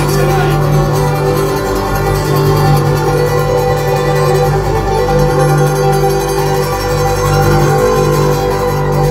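Live bluegrass band playing loudly through a PA: acoustic guitars, upright bass, fiddle and dobro together, with no singing.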